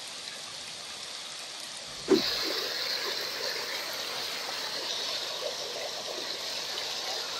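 Sleet falling, a faint steady patter of ice pellets. About two seconds in it cuts suddenly to a small mountain brook running over rocks, a louder steady rush.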